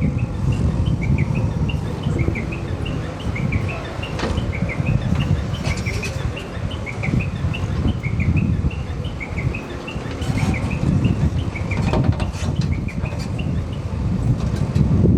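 Small birds chirping rapidly and repeatedly over a steady low rumble.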